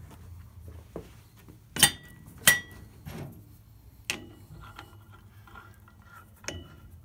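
Steel adapters, spacers and the arbor nut clinking against each other as they are fitted onto an AMMCO brake lathe's arbor to clamp a large brake rotor. Two loud ringing metal clinks about two seconds in, with a few lighter clinks later.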